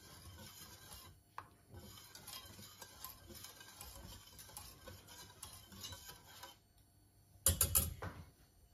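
Wire whisk stirring a thin soup in a stainless steel pot: a faint, light ticking and swishing as the wires scrape the pot. Near the end comes a brief, louder clinking as the whisk knocks against the pot while it is lifted out.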